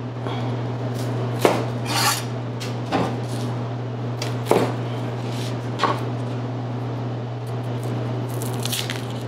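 Kitchen knife cutting through a Spanish onion and knocking on the cutting board: about five separate sharp knocks, then a quick run of lighter taps near the end, over a steady low hum.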